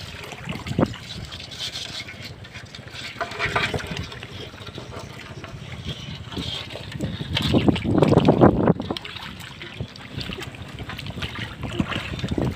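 Shallow muddy water splashing and sloshing as hands grope and dig through it, in irregular bursts, loudest about eight seconds in.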